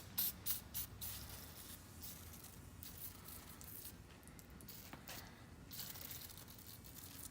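Aerosol can spraying penetrating oil onto a rust-seized wrench to free it: several quick hisses in the first second or so, then a longer spray about five seconds in.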